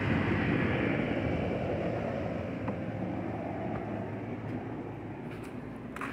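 Steady rumble of a passing vehicle that slowly fades, with a light tick near the end.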